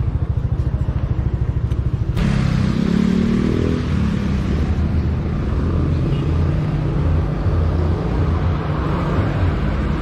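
Motor vehicle engine and road noise. A regular low pulsing runs for about the first two seconds, then changes suddenly to a steadier rumble with a pitched engine hum lasting a couple of seconds.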